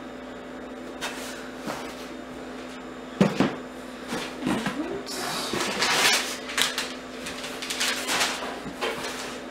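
Cardboard boxes being handled: a box is set down with a thump just after three seconds in, followed by scraping and rustling as hands rummage inside a large cardboard shipping carton. A steady low hum runs underneath.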